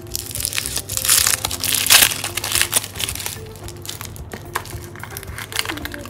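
Gold foil wrapper crinkling and crackling as it is peeled off a chocolate ball, loudest about one to two seconds in. Soft background music plays underneath.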